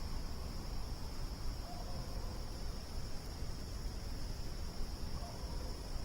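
Crickets trilling in a steady, continuous chorus over a low rumbling background, with a faint short call about two seconds in and another near the end.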